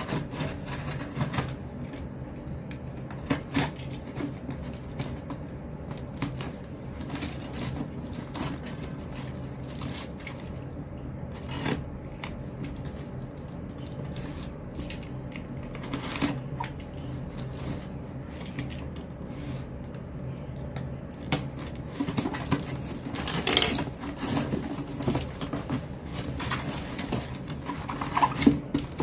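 Packing tape on a cardboard box being slit and scraped with a small cutter, with scattered scrapes, taps and cardboard rustling, busier near the end as the flaps are pulled open. A steady low hum runs underneath.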